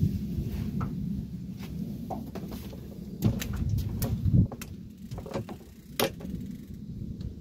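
Low rumble of wind on the microphone, with scattered clicks and knocks from a heavy fishing rod and reel being worked against a hooked fish on a boat deck; a few sharper knocks stand out in the middle.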